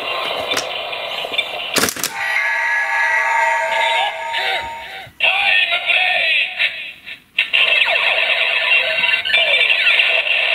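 Kamen Rider Zi-O Ziku-Driver toy belt playing its electronic transformation jingle and announcement through its small built-in speaker, set off by spinning the belt with the Kabuto Ride Watch fitted. A sharp click about two seconds in.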